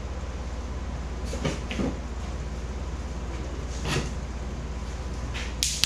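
A few light knocks and scrapes from handling pieces of wood and a wooden glue spreader, over a steady low hum. The sharpest knock comes near the end.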